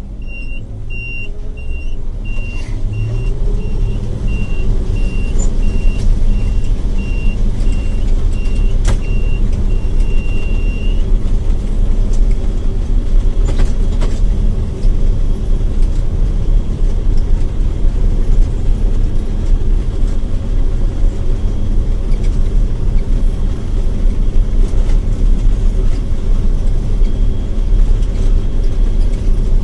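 John Deere 9700 combine running during wheat harvest. Its machine noise builds over the first few seconds as it comes up to speed, then runs steady. A rapid, high-pitched beeping alarm repeats until about a third of the way through, then stops.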